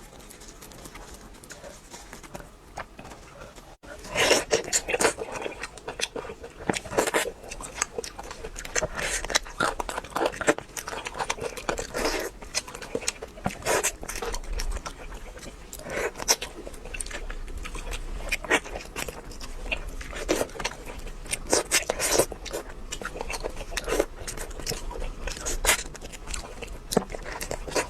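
Close-miked eating of crispy fried food: crunching bites and chewing, with many irregular sharp crackles. It is quieter for the first few seconds, then the louder crunching starts about four seconds in.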